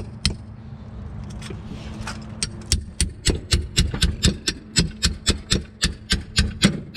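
Steel claw hammer repeatedly striking a wrench fitted on a bolt of a boat's sterndrive transom assembly, hammering the wrench round to turn a stubborn bolt. A couple of separate blows at first, then about two and a half seconds in a steady run of sharp metallic blows, about four a second.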